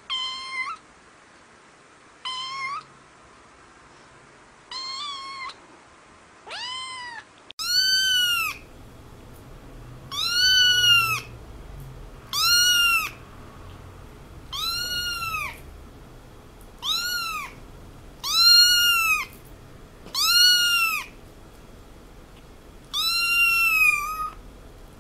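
Cat meowing over and over, about twelve meows, each rising and then falling in pitch, roughly one every two seconds. The meows are dubbed-in recordings: four shorter, thinner meows give way about seven seconds in to a fuller-sounding recording with longer, louder meows.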